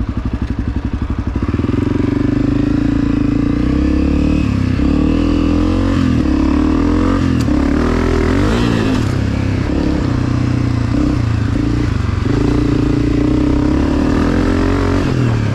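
2022 Honda CRF250F single-cylinder four-stroke dirt bike engine with a Pro Circuit exhaust, being ridden: the revs rise and fall again and again with the throttle, and it gets louder about a second and a half in as the throttle opens.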